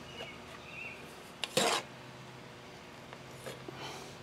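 A metal hand scoop scraping through and tipping loose molding sand into a wooden flask: one short noisy rush of sand about a second and a half in, with a few faint clicks later.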